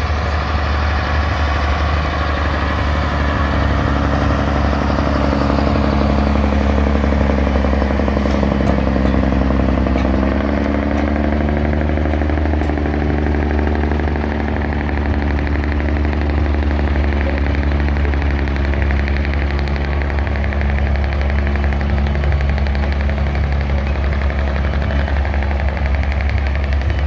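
Several heavy Scammell 6x6 trucks running together as they pull in a convoy, a steady low engine drone. The engine note steps up about ten seconds in and then holds.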